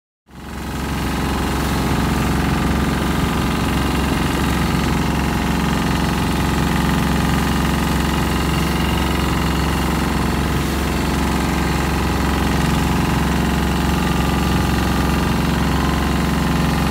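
Longtail boat engine running steadily at speed, loud and close, with a rush of wind and water over it. It cuts in just after the start.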